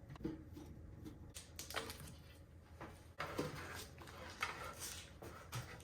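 Faint handling noises from computer parts being moved: light rustling and a few small knocks and clicks.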